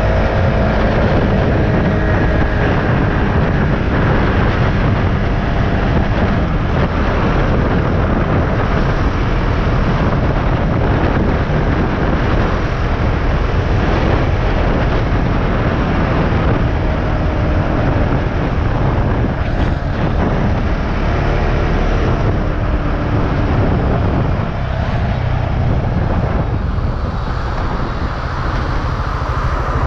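Wind noise on the rider's microphone with a KTM Duke 690's single-cylinder engine running underneath while the motorcycle is ridden.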